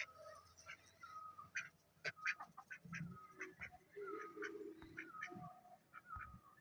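Farm poultry calling: a run of short, repeated calls every half second or so, fairly faint, with a lower, longer call about four seconds in.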